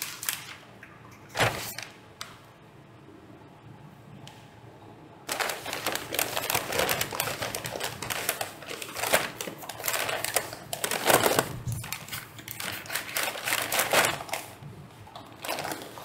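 White plastic packaging bag crinkling and rustling as it is handled, a dense crackle that starts about five seconds in and runs for some ten seconds, after a few light taps at the start.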